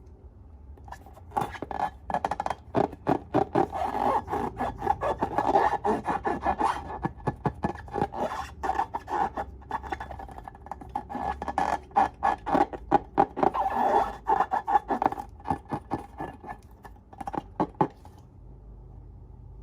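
Slime being squished and mixed: a dense run of sticky clicks and crackles that starts about a second in, eases briefly midway and stops near the end.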